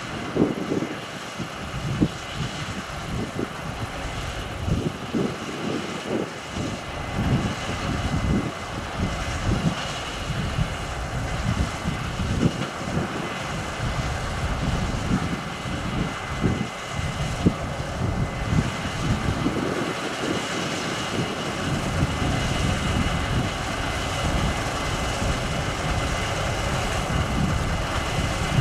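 Case IH Axial-Flow 9230 combine harvester running under load while cutting wheat: a steady mechanical drone with a thin high whine on top. Gusts of wind buffet the microphone with uneven low rumbles.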